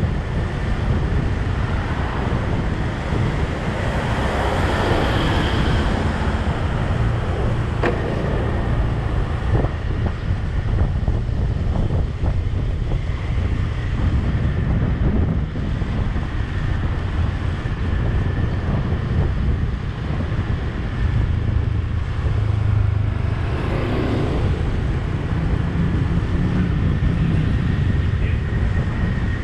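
Wind buffeting the microphone over the steady low rumble of a vehicle driving along a street, with a couple of louder swells as other vehicles pass.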